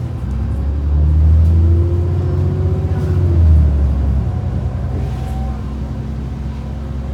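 Dennis Trident 2 double-decker bus engine pulling away: a heavy, low rumble builds for about three seconds, then falls back about four seconds in as the Voith automatic gearbox changes up, and runs on steadily.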